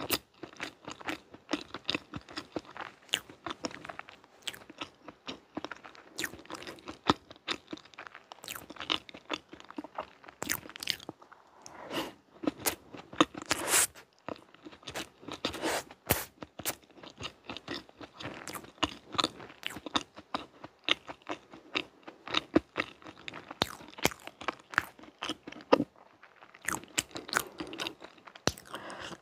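Close-miked chewing and biting of soft chocolate layer cake: a dense, continuous run of small mouth clicks and smacks.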